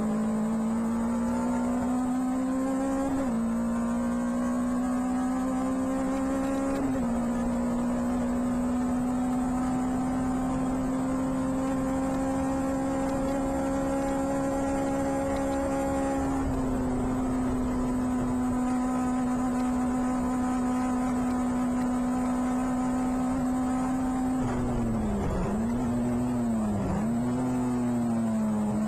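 Clubman Seven-type race car's engine heard onboard at racing speed. Its pitch climbs and drops back sharply twice in the first seven seconds as it changes up. It then holds steady at high revs for a long stretch and dips briefly twice near the end.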